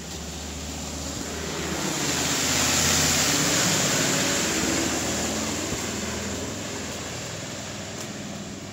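A road vehicle driving past on a snowy street. Its tyres hiss, with an engine hum underneath, swelling to a peak about three seconds in and slowly fading away.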